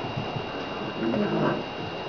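SpringerLander puppies making short, irregular little vocal sounds as they play and move about.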